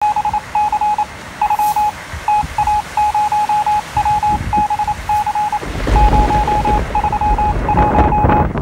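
An electronic beep at one steady pitch, keyed on and off in short and long pulses like Morse code. Storm wind buffets the microphone underneath and grows much stronger about two-thirds of the way in.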